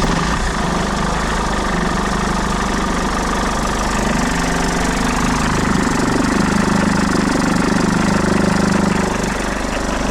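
2008 Mercedes E220 CDI's four-cylinder diesel engine idling steadily, with a failed alternator pulley letting the auxiliary belt tensioner flap.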